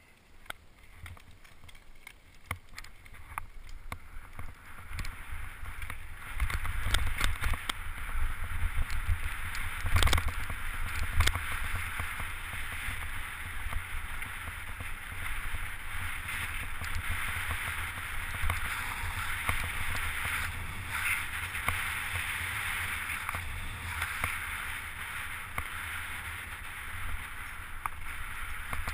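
Mountain bike going fast downhill on a gravel and dirt track: wind buffeting the action camera's microphone and tyres rolling over loose stones, with frequent short knocks and rattles from the bike over rough ground. It grows louder over the first several seconds as speed builds.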